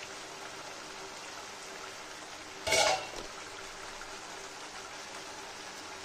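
Fish curry simmering in a non-stick kadai on a gas burner: a steady soft bubbling and sizzling hiss. A little under three seconds in, one short, louder knock.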